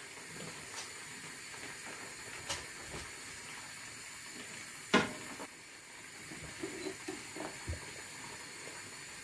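A few light knocks and taps of hands and vegetables on a wooden chopping board, the sharpest about five seconds in, over a steady background hiss.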